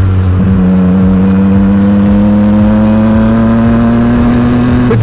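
Triumph Street Triple's three-cylinder engine pulling steadily in gear, its note rising slowly as the bike gains speed.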